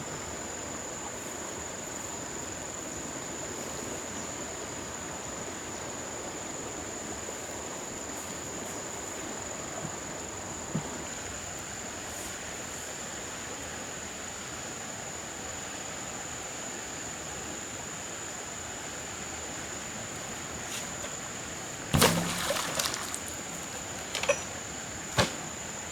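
Steady rush of flowing water under a constant thin high-pitched tone. A loud clatter comes about 22 seconds in, followed by two sharp knocks near the end.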